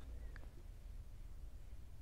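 Quiet room tone: a steady low hum with one faint tick about a third of a second in.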